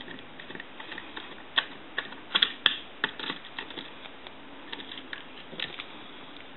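Irregular small clicks and taps of tools and metal parts being handled while brackets are removed from inside a vintage desk telephone. The clicks are thickest in the first half and thin out toward the end.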